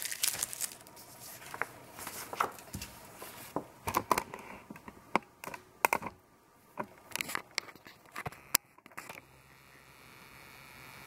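Bristle paintbrush dabbing and scratching white acrylic paint across paper in short, quick strokes: an irregular string of dry scrapes and ticks. About nine seconds in the strokes stop, leaving a faint steady hum.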